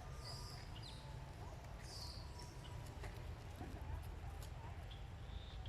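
Outdoor ambience: a steady low rumble like wind on the microphone, with a couple of short high-pitched chirps near the start and about two seconds in, and a few faint squeaks and ticks.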